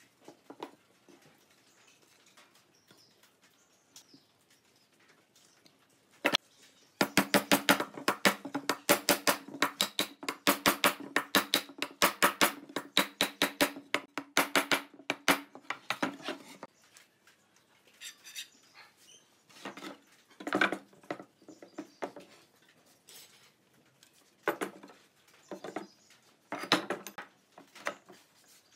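Woodworking bench work. A quick, steady run of sharp taps and knocks starts about seven seconds in and lasts roughly eight seconds. Then come scattered single knocks and metal clinks as steel pipe clamps are set on a glued pine panel.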